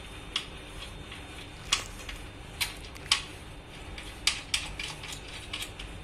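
Scattered light clicks and metal clinks, about a dozen at irregular intervals, as bolts are handled and fitted by hand into the metal frame of an elliptical trainer during assembly.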